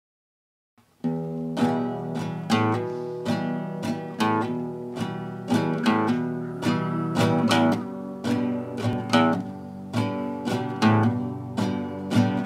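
Guitar intro: a steady run of chords, about two strums a second, starting about a second in.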